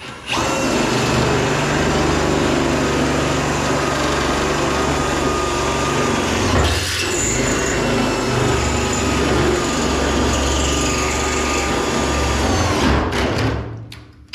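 Power drill boring a bolt hole for the gas tank mount, running steadily with a faint whine for about thirteen seconds. It eases off briefly about halfway, then stops shortly before the end.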